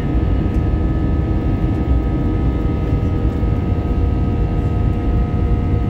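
Inside the cabin of an Airbus A320 climbing after takeoff: the jet engines and airflow make a steady drone, a deep rumble with several steady whining tones over it.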